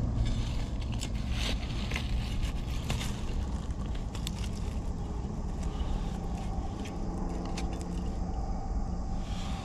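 Dry leaf litter crackling and rustling as a hand digs a mushroom out of the forest floor, with scattered short clicks over a steady low rumble on the microphone.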